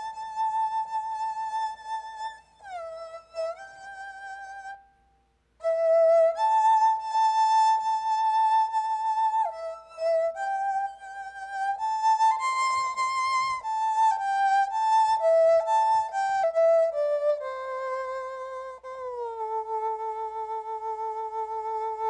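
Sampled erhu sound played from a keyboard: a slow solo melody, its notes joined by pitch slides, with vibrato on the held notes. It breaks off for about a second around five seconds in, and ends on a low held note after a downward slide.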